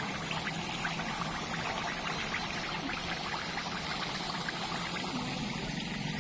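Food deep-frying in a large wok of hot oil: a steady sizzle with a dense run of small crackles and pops.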